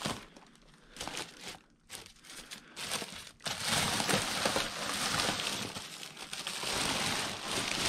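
Plastic garbage bags crinkling and rustling as hands dig through them. A few separate rustles at first, then continuous crinkling from about three and a half seconds in.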